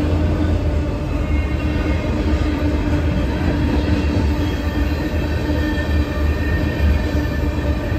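Freight cars of a Canadian National manifest train, autoracks and then tank cars, rolling past at speed. It is a steady heavy rumble of steel wheels on rail, with faint thin squealing tones from the wheels.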